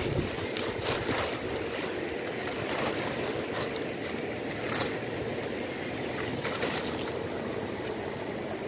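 Steady rushing of flowing water, with two short knocks about halfway through.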